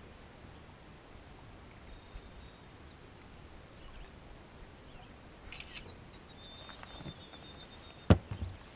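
Faint steady outdoor background on an open boat, with a few thin high whistling tones about halfway through. Near the end comes a single sharp knock, the loudest sound, as the aluminium landing net frame strikes the boat.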